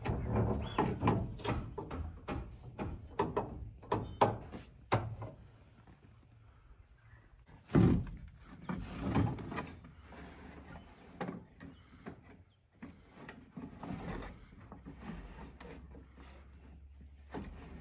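Metal clicks, rattles and knocks from an old Bedford TK truck's cab door and its latch being worked with pliers, with two louder knocks about eight and nine seconds in.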